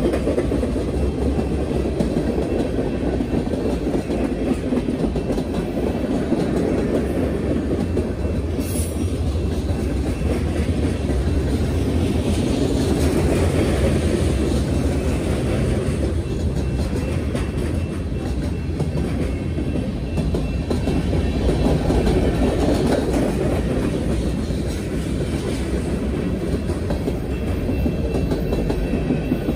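Freight train of boxcars and covered hopper cars rolling past: a steady rumble of steel wheels on the rails.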